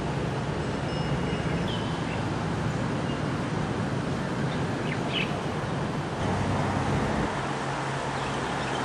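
Steady outdoor noise under a low engine-like hum, with a few brief bird chirps about two seconds and five seconds in.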